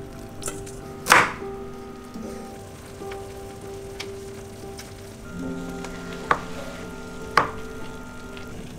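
A kitchen knife slices through egg tofu and taps the wooden cutting board twice near the end, over soft background music. There is a louder knock about a second in.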